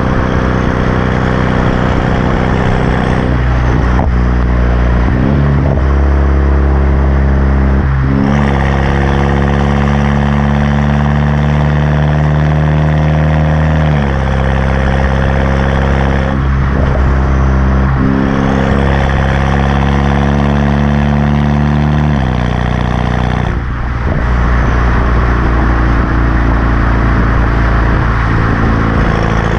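Exhaust of a BMW 328i's turbocharged 2.0-litre four-cylinder, opened up by a muffler and resonator delete and an aftermarket downpipe, running loud as the engine speed is raised, held and dropped several times. The pitch climbs in steps and falls back sharply around the middle and again near the end.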